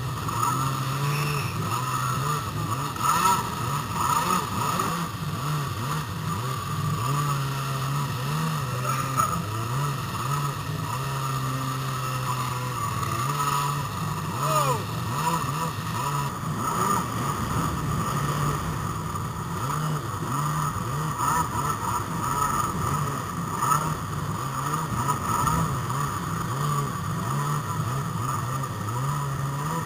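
Jet ski engine running over choppy water, its pitch stepping up and down again and again as the throttle and load change, over a steady rush of water and wind noise.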